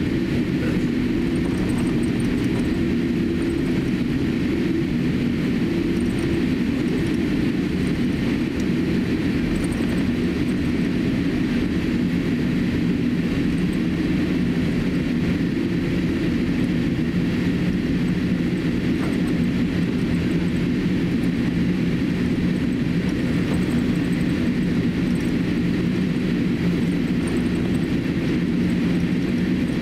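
Cabin noise inside a Boeing 787-8 taxiing: its GEnx turbofan engines running at low taxi thrust, heard through the cabin as a steady hum with a few low tones over an even rush.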